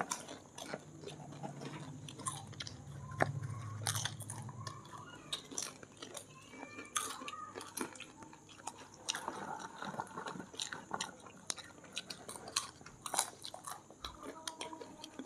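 People chewing and crunching masala popcorn: a soft, irregular scatter of crunches and bites.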